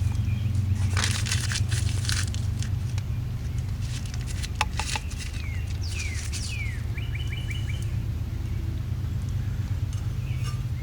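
Birds chirping a few times, including a quick run of four short chirps, over a steady low rumble. A burst of rustling comes about a second in, and a couple of sharp clicks come around four and a half seconds.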